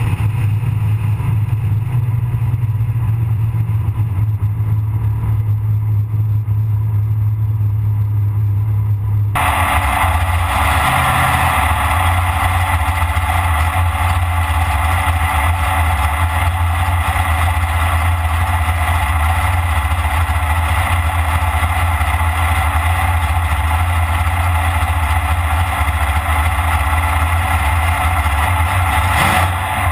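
AMC Pro Stock drag car's V8 engine running, loud throughout. About a third of the way in, the sound changes abruptly from a low steady drone to a harsher, brighter engine sound heard from inside the car's cabin.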